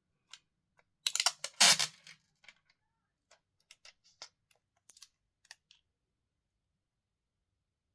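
A quick cluster of clicks and rustles about a second in, then scattered light clicks: small phone parts and packaging handled on a repair bench.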